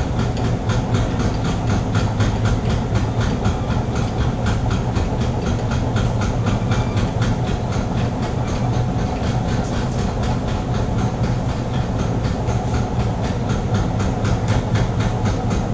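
Electric hoist running steadily with a low motor hum and a rapid, even clatter of about four to five clicks a second as the heavy boat mold is slowly let down.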